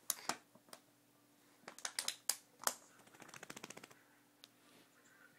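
A small plastic water bottle being handled by a baby: sharp clicks and knocks of the plastic, a cluster of them about two seconds in, then a quick run of crackling ticks for about a second.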